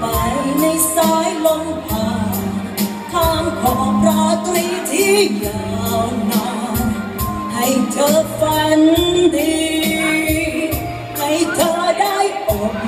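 A woman singing a Thai pop song into a handheld microphone over a backing track with a steady beat.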